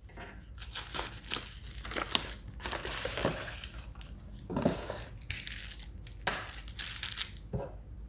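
Cardboard box and packaging being handled and moved: irregular rustling with short sharp clicks.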